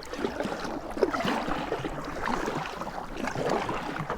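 Kayak paddle strokes dipping into calm water, with splashing and dripping and a few light knocks.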